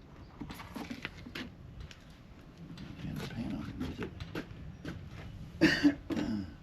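Irregular clicks, taps and scuffs of hand work, with a couple of sharp knocks about five and a half seconds in.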